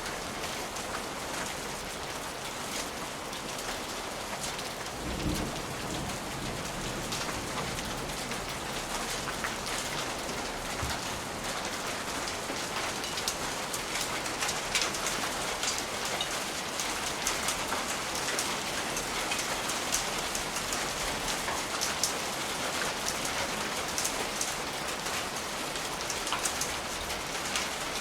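Steady rain falling on a surface, with many short sharp crackles and ticks over it, as from a crackling fireplace. A brief low rumble comes about five seconds in.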